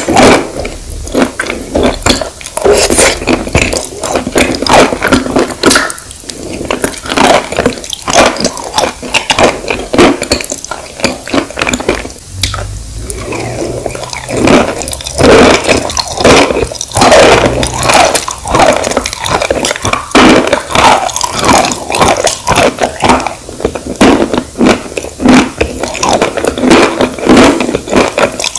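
Close-miked crunching and wet chewing of chalk pieces coated in a creamy clay paste, a dense, continuous run of crackles with a brief quieter lull about twelve seconds in.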